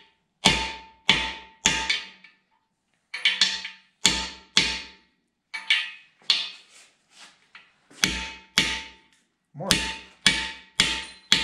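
A hammer striking a socket used as a driver to seat steel frost plugs into the side of a Chevrolet 454 big-block engine block: about fifteen sharp metal blows in groups of two or three, many of them followed by a short ringing tone.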